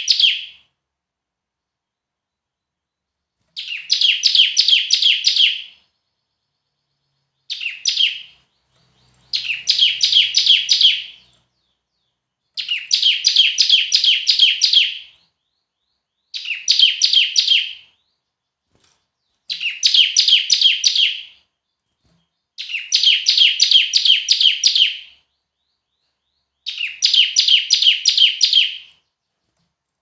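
Caged bar-winged prinia (ciblek) singing loudly: phrases of rapid, high, repeated chattering notes, each about two seconds long, given again and again with short pauses between.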